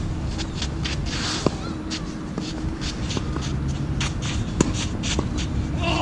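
Tennis rally: repeated shoe scuffs and shuffling steps on the court, with a fainter racket hitting the ball about a second and a half in and a sharp, louder racket strike on the ball about four and a half seconds in, over a steady low rumble.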